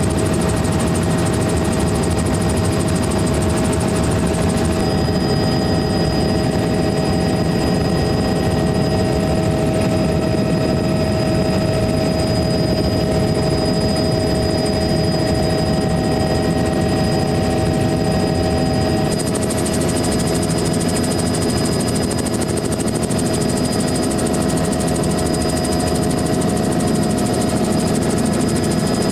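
Helicopter in flight, heard from inside the cabin: a steady loud drone of rotor and engine with a constant high whine. Its tone shifts slightly twice.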